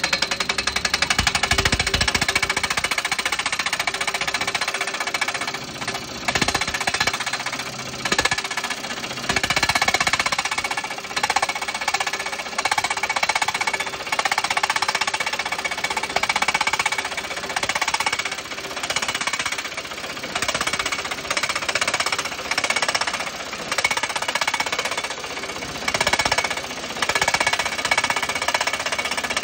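Tractor-mounted hydraulic post driver hammering a steel crash-barrier post into hard ground, with fast, continuous repeated blows on the post head.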